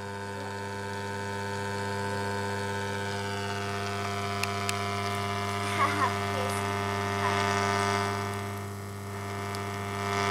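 Steady mains hum buzzing from an active speaker hooked up to a DVD player that has no sound, with no program audio coming through. A couple of sharp clicks and a short crackle come in the middle. Near the end the hum dips, then returns louder as the speaker's knob is turned.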